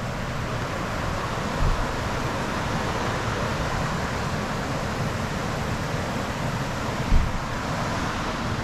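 Steady rushing noise with low rumbling buffets, and two brief low thumps, one about two seconds in and one near the end.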